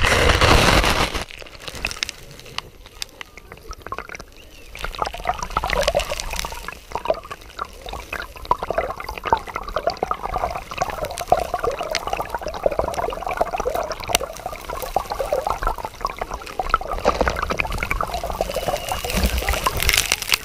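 A loud splash as the microphone goes under, then muffled river water heard from underwater, with many small scattered clicks. A louder rush of water comes about a second before the end.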